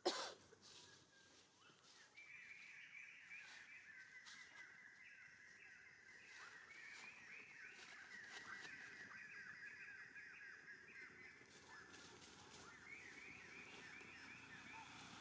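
A sharp knock right at the start, then faint, quick, high-pitched chirping that keeps up steadily from about two seconds in.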